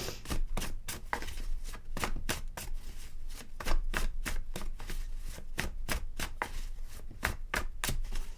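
A deck of tarot cards being shuffled and handled: a quick, irregular run of sharp card snaps, about four or five a second.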